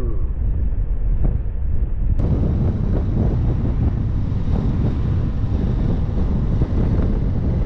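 Wind buffeting the microphone of a camera mounted on a moving motorcycle, with the motorcycle and road noise rumbling underneath.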